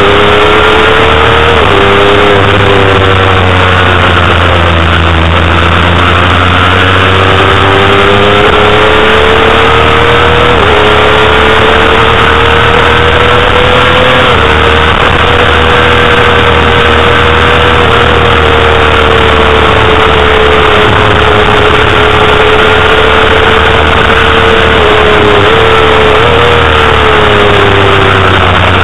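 Honda CBR250RR's inline-four 250 cc engine racing at high revs, heard onboard and loud. Its high pitch holds near the top of the rev range, falling a couple of seconds in and climbing back over the next several seconds, with short dips at gear changes around the middle and near the end.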